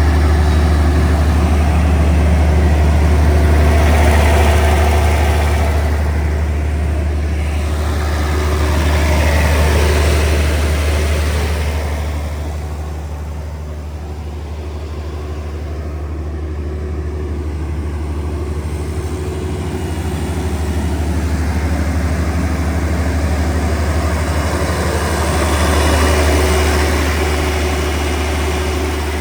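A Generac 60 kW diesel generator set, driven by a John Deere 5030HF diesel engine, running steadily at its fixed governed speed with a deep constant hum. The loudness rises and falls slowly.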